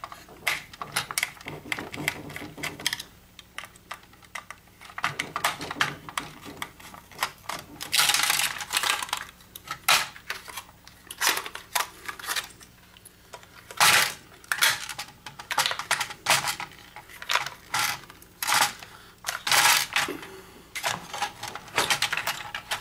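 Plastic and metal parts of a digital projector being handled and taken apart by hand: irregular clicks, knocks and rattles, with a denser scraping stretch about eight seconds in.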